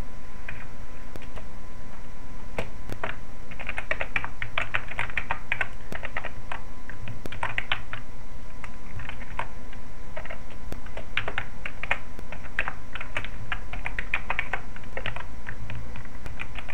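Computer keyboard being typed on in quick runs of keystrokes with short pauses between them, over a steady low background hum.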